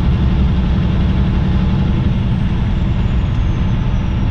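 Semi truck running down the road: steady engine and road noise, a continuous low rumble.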